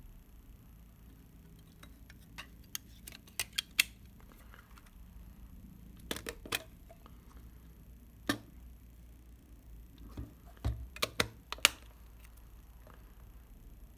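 Small mechanical clicks from a Rolleiflex Standard twin-lens reflex camera being worked by hand at its winding crank and body. The clicks come in short clusters a few seconds apart.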